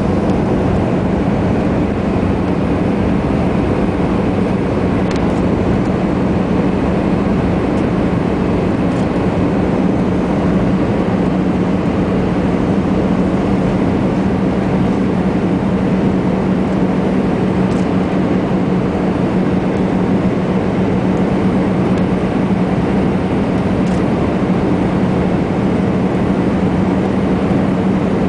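Airbus A320 cabin noise on final approach: a steady rush of engine and airflow noise with a constant low hum under it.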